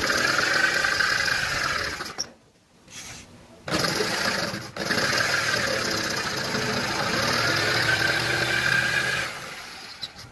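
Bosch GST 700 jigsaw with a T101AO curve blade cutting through plywood. It runs about two seconds, stops for a second or so, then runs again for about five and a half seconds before stopping near the end.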